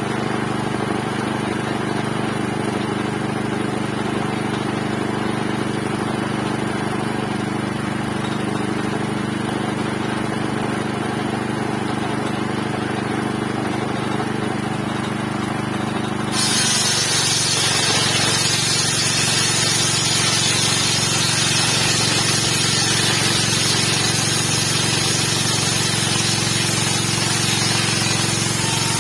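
A 7.5 HP engine running steadily, driving a large circular saw blade. About halfway through, the blade bites into wood and a loud, steady sawing hiss starts suddenly while the engine note drops under the load of the cut.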